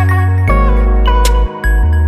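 Background music: sustained keyboard notes over a deep bass line that changes pitch about half a second in, with a bright struck accent shortly after a second in.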